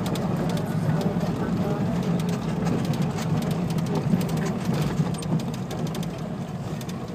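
Slow street traffic: a steady low engine hum from the vehicle and the motorbikes close ahead, with scattered light clicks and faint voices of people in the street.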